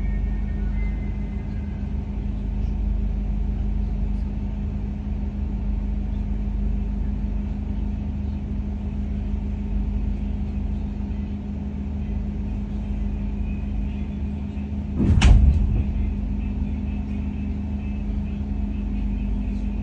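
Steady hum with a constant low tone inside the passenger cabin of a KTM ETS electric train. About fifteen seconds in there is a single loud thump.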